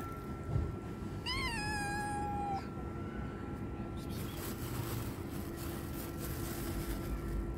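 Stray tabby kitten meowing once, one long call of about a second that rises briefly, then drops and holds its pitch.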